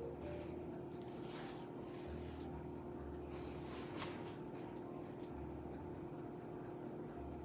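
A metal spoon stirring milk tea in a ceramic mug, with a few faint scrapes and clinks, over a steady low hum.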